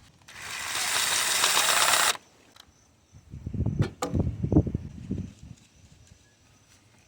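Pressurised air or spray hissing steadily for about two seconds, then cutting off sharply. A few seconds later comes a cluster of knocks and clatter from hand tools on the engine.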